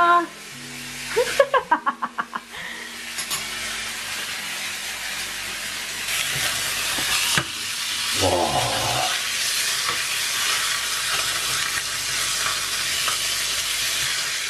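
Meat chops sizzling as they fry in a hot pan, a steady hiss. About a second in, a quick run of about eight metallic taps from a spoon knocked against the cookware, and a short falling tone at about eight seconds.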